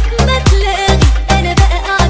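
Upbeat dance music: a heavy bass drum beating about twice a second with a melody line over it.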